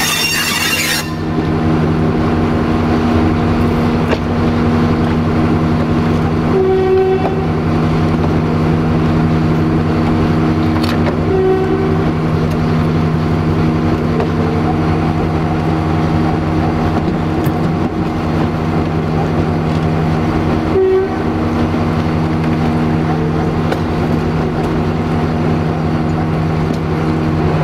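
Diesel engine of an LDH1360 diesel-hydraulic shunting locomotive running steadily, heard from the cab as it rolls through the yard. A high wheel squeal stops about a second in, and there are three short horn toots.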